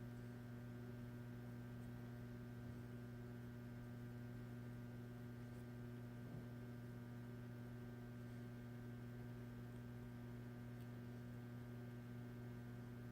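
Faint, steady low electrical hum with a few fainter higher tones above it, and one faint tap about six seconds in.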